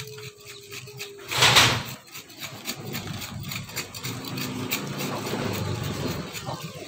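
Dry coconut husk fibre being scraped and torn off a sprouted coconut by hand: a stream of crackly, rasping strokes with one loud rip about a second and a half in. A low hum runs underneath.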